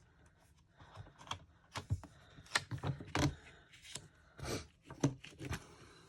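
Irregular clicks, taps and knocks of stamping supplies being handled on a craft desk, the loudest in the middle of the stretch.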